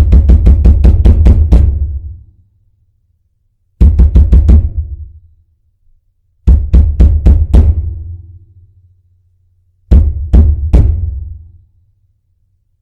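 Frantic pounding on a door: a fast run of heavy, booming thuds, about five a second, that stops just before two seconds in, followed by three short flurries of four or five blows each, separated by silent pauses.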